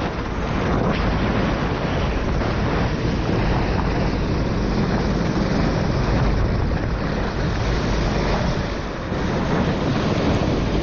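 Wind buffeting the onboard camera's microphone at racing speed over a four-stroke kart engine and tyres hissing through standing water on a rain-soaked track. The noise is loud and steady, dipping briefly about nine seconds in.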